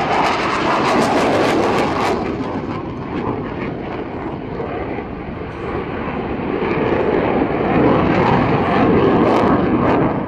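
Jet noise from a JAS 39 Gripen fighter's single Volvo RM12 turbofan during a display flight. It is a loud, rough roar that eases off around the middle and swells again near the end as the aircraft passes, with some crackle in the first couple of seconds.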